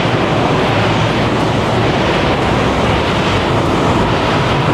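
Steady, loud roar of busy street traffic.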